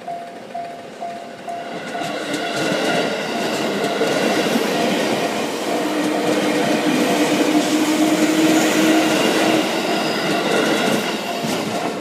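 A JR East 205-series electric train passing over a level crossing, its wheels clattering on the rails. The crossing's warning bell rings about twice a second. The train's noise swells in about two seconds in, a steady hum joins it midway through the pass, and the train fades near the end, leaving the bell ringing on its own.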